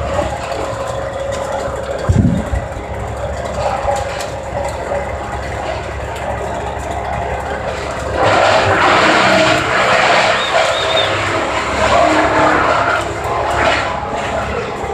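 A gas-powered engine running steadily at tree-work equipment, with a single low thud about two seconds in; the engine sound grows louder and harsher about eight seconds in, easing again a few seconds later.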